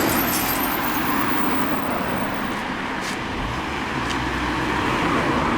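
Steady road-traffic noise of a passing motor vehicle, with a low engine hum swelling in the middle and a few light clicks.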